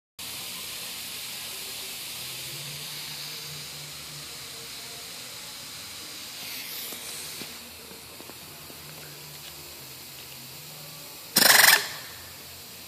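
A steady faint hiss, then near the end a single short, loud burst of compressed-air hiss lasting under half a second from a Rivkle/Rivnut 4090 pneumatic-hydraulic spin-pull rivet nut tool.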